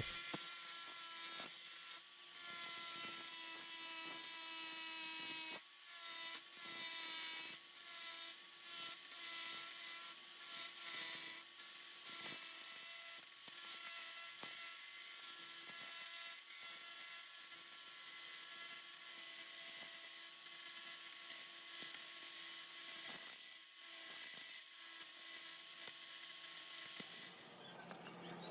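Small power tool running with a steady whine and a high hiss, cutting in short passes that break off and start again many times.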